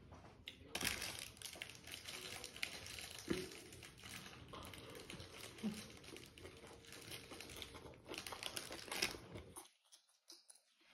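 Crisp lettuce leaves crinkling and crackling in the fingers as they are folded around food, then crunching as the wrap is bitten and chewed. The crackling is a dense, irregular run of small clicks that stops about a second before the end.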